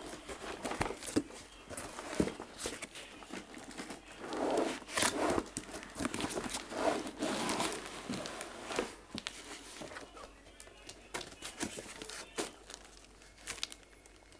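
Plastic bag and cardboard packaging rustling and crinkling, with scattered knocks and scrapes, as a quartz room heater is pulled out of its box. The rustling is heaviest in the middle and thins out near the end.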